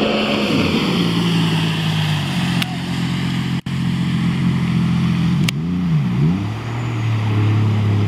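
A motor engine running steadily, its pitch stepping down about a second in and dipping then rising again about six seconds in.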